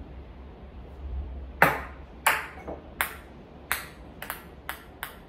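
A ping-pong ball bouncing on a hard surface after a missed throw at the cups. The first bounce comes about one and a half seconds in, then about eight more follow, coming quicker and quicker as the ball settles.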